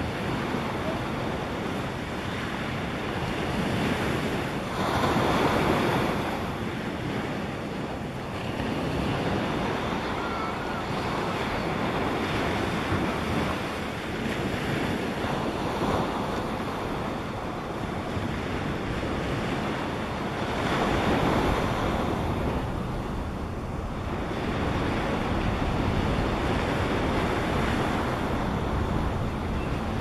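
Wind rushing over the microphone: a steady hiss that swells and eases in gusts several times.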